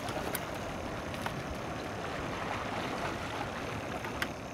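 Steady wash of sea water against shoreline rocks, with wind on the microphone and a few faint clicks.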